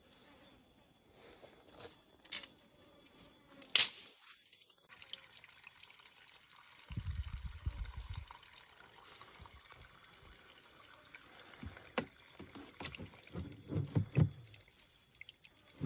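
A thin trickle of spring water running off wet rock into a plastic jerrycan as it is filled, with a few light knocks from handling the can. The first few seconds are nearly quiet.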